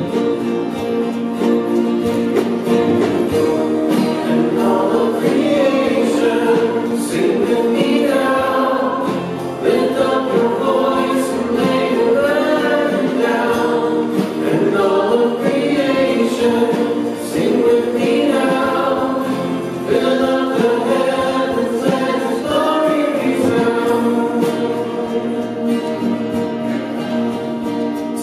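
Parish choir singing a worship song, several voices together holding long notes that step and glide in pitch.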